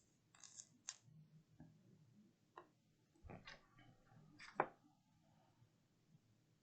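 Near silence broken by a few faint clicks and taps, the sharpest about four and a half seconds in.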